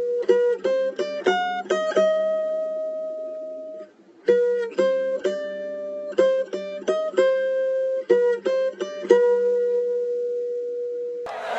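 A melody of quick plucked notes on a guitar-like string instrument, played in two phrases that each end on a held note, with a brief pause about four seconds in. Just before the end, loud crowd noise comes in.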